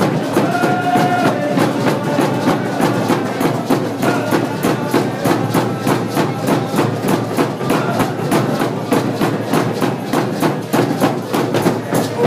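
Hand game drumming and singing: hand drums beaten in a fast, steady beat, with voices singing over them.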